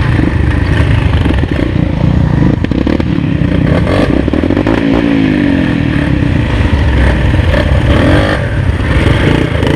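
Trail motorcycle engine running under throttle on a dirt track, its pitch rising and falling around the middle, with a few knocks from the bike over rough ground.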